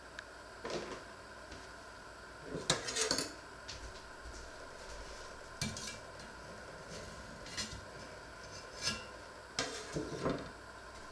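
Cookware and utensils clattering: a utensil knocking and scraping in a pot, in short sharp bursts several times, loudest about three seconds in and again near the end.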